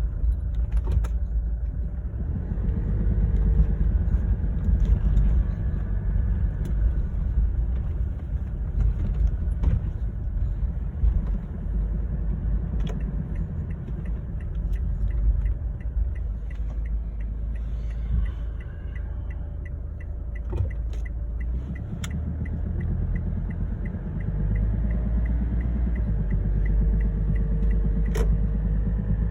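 Kia Sorento 2.2 diesel engine running with a knock, the fault the recording is made to show: a steady low rumble, with a regular light ticking through the middle.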